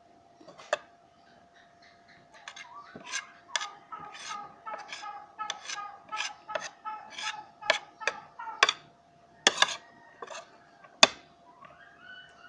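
Cutlery clinking against a plate, with several sharp clinks among a run of quicker, shorter sounds.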